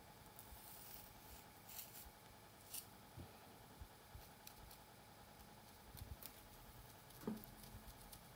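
Faint, scattered scratching and crackling of long fingernails and a wooden comb picking through tightly coiled hair on the scalp, with a soft thump about seven seconds in.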